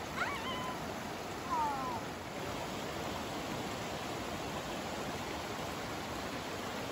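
Steady rush of flowing water. Early on there are two short pitched sliding sounds: one rising about a quarter second in, one falling about a second and a half in.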